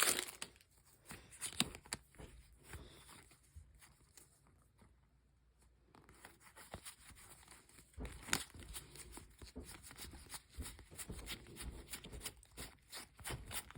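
Plastic wrap on card decks crinkling and tearing, with small clicks of cards being handled, in short scattered rustles; it goes almost silent about four seconds in and picks up again with denser crackling from about eight seconds.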